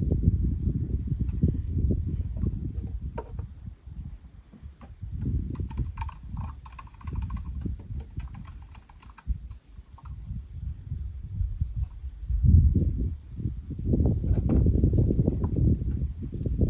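Insect chorus: a steady high-pitched drone. Under it a low rumbling noise swells and fades, dipping in the middle and loudest about twelve seconds in.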